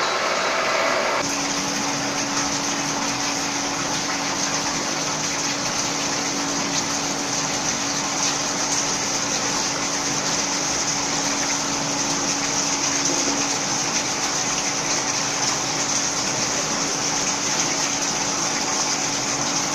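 A different machine noise cuts off about a second in and gives way to a steady rush of liquid. The liquid is pouring from the many outlet taps of a plate-and-frame filter press into its collecting trough, over a steady machine hum.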